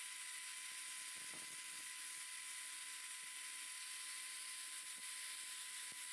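Makita angle grinder running steadily with a high whine, its abrasive disc sanding a piece of bamboo held against it.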